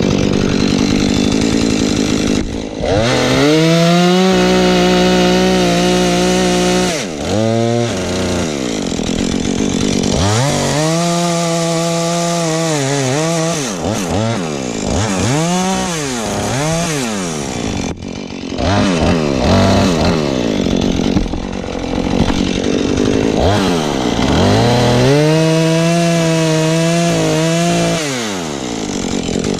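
Husqvarna 435 two-stroke chainsaw revved up to full throttle and back down to idle several times, the longest runs holding a steady high pitch for about three seconds. It is cutting through black pine logs.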